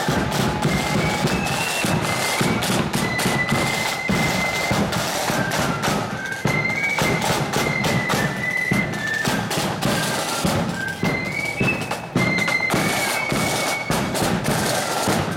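Marching band playing a tune: a high, piercing melody of held notes over a steady drum beat.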